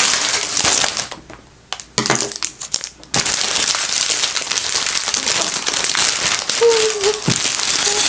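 Clear plastic LEGO parts bag crinkling as it is handled and pulled open, with a brief lull about a second in and steady crinkling from about three seconds on.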